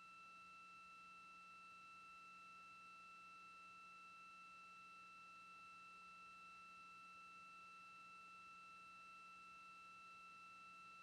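Near silence: a faint, steady electronic whine of several high tones held at constant pitch, with a fainter low hum beneath, on the broadcast audio line.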